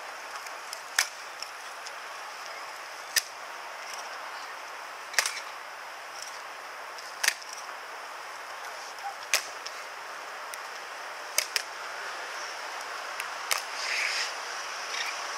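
Evzone guards' hobnailed tsarouchia shoes striking the marble pavement in their slow ceremonial march: sharp single stomps about every two seconds, with a quick double strike a little past the middle.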